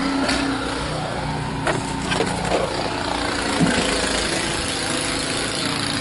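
A snowblower's engine running steadily, with a few light knocks about two seconds in.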